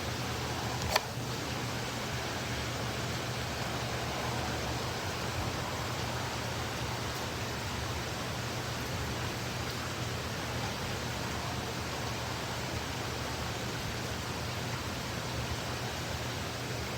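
Heavy rain falling in a steady hiss, with a single sharp click about a second in.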